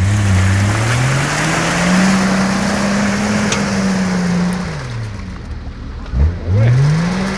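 Off-road vehicle engine revving hard in deep mud: the note climbs over about two seconds, holds high, drops back about four and a half seconds in, then climbs again near the end.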